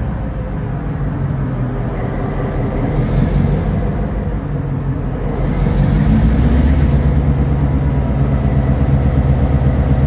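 Non-turbocharged V16 diesel engine of an EMD SD38-2 locomotive running under load, growing louder about six seconds in as the engine ramps up.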